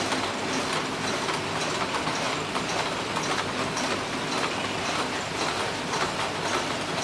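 Screw-making machine running with a steady, fast mechanical clatter of many rapid clicks and knocks.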